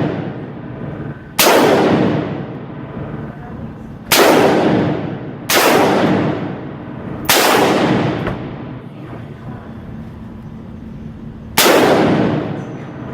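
AR-15 rifle fired in single semi-automatic shots, five times at uneven intervals, each shot loud and followed by a long echoing tail.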